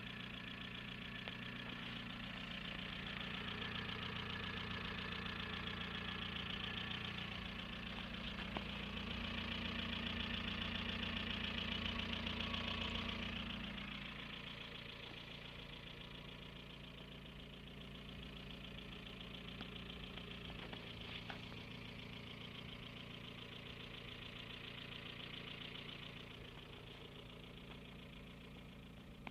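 Opel Vectra B's 1.8 16V four-cylinder petrol engine running steadily, louder for the first half and easing off after about fourteen seconds.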